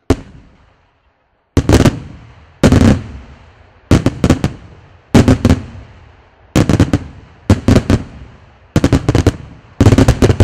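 Daytime aerial firework shells bursting overhead. A single bang comes first, then about eight volleys, each a rapid cluster of several sharp reports, coming roughly once a second and each trailing off in an echo.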